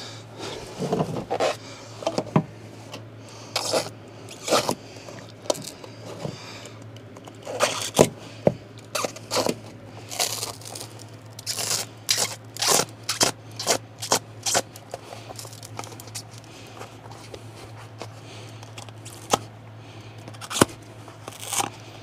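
Knife cutting through Armaflex closed-cell foam pipe insulation for a miter cut: irregular short scraping, tearing strokes, over a faint steady low hum.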